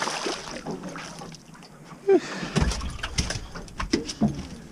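Small striped bass being lifted out of the water into a boat: a splashing haze at first, then a sharp knock about two seconds in with a second of rumbling and several clicks as the fish comes aboard.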